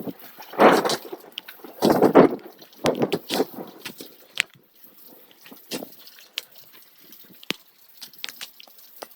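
Rainstorm recorded on a phone: loud bursts of rushing noise in the first three seconds or so, then scattered sharp crackling clicks. The clicks are the crunchy noise that the uploader believes the phone makes whenever lightning strikes nearby.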